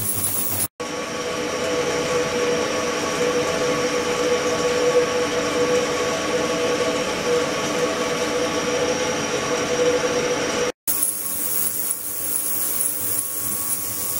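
Ultrasonic cleaning tank running with water flowing through it: a steady hiss with several held, humming tones. The sound drops out for an instant twice, about a second in and near ten seconds.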